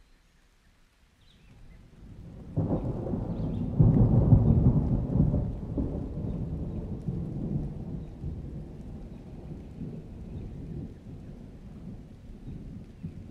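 Rolling thunder: a low rumble builds about two seconds in, breaks into a louder peal a moment later, then rolls on and slowly fades.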